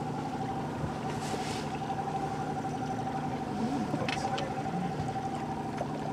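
Boat's outboard motor running steadily at trolling speed, a constant whine over a low hum, with a couple of light knocks from handling in the boat.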